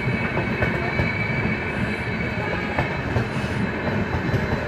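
Double-decker passenger coaches of an arriving express rolling past: a steady rumble of steel wheels on rail, with a thin, high, steady squeal of the wheels and scattered clacks over the rail joints.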